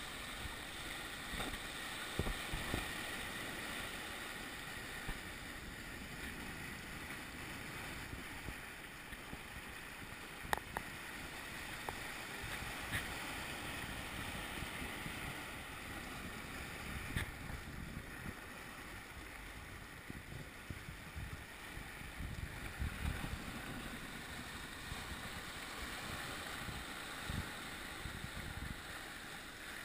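Steady rush of water streaming along a sailing yacht's hull and churning in its wake, with wind buffeting the microphone. A few sharp knocks sound over it.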